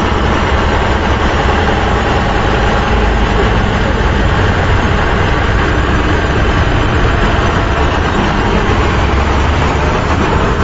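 Heavy truck engine idling with a steady, unbroken rumble.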